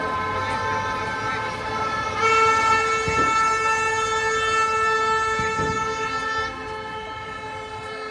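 A long, steady air horn blast, loudest from about two seconds in until about six and a half seconds, over another horn or siren tone held beneath it.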